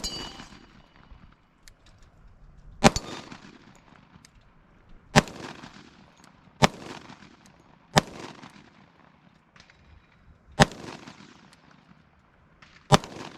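Sig Sauer P320 X-TEN 10mm pistol fired in slow, aimed single shots: seven sharp reports, about one and a half to two and a half seconds apart, each with a short echo.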